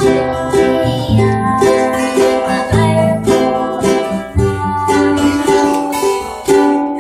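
A young girl singing a song while strumming a ukulele, accompanied by a strummed acoustic guitar, in a small room.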